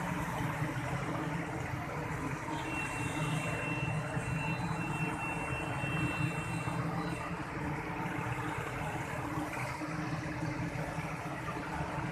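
Steady rush of rain and water on a flooded street, with a motorcycle engine running as it rides through the water. A thin high whine sounds from about three to seven seconds in.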